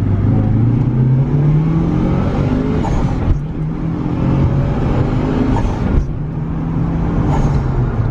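Mitsubishi Lancer Evolution VI Tommi Mäkinen Edition's turbocharged 2.0-litre four-cylinder pulling hard under full acceleration. The engine note climbs in pitch three times, with a short break at each upshift about three and six seconds in.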